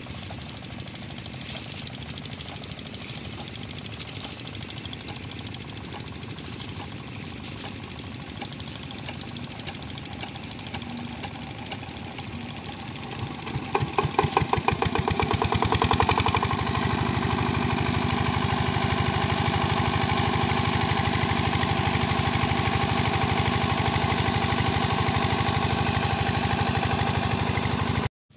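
Small stationary engine (the "Usha machine") chugging quietly at first. About halfway through it picks up with a run of loud, evenly spaced knocks that quicken, then settles into steady, louder running.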